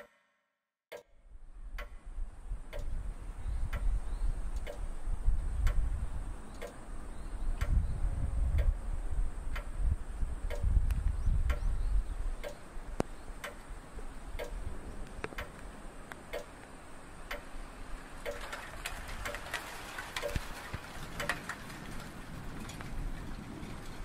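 A clock ticking steadily over a low rumble that swells in the middle, with a hiss rising near the end.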